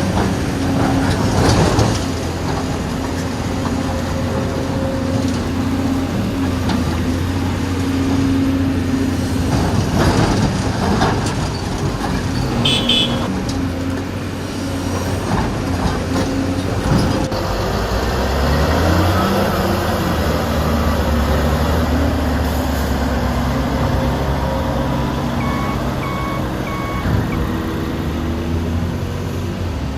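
Heavy diesel construction machinery running steadily, with scattered metallic clanks. The engine rises in pitch a little past halfway. Near the end a reversing alarm beeps several times.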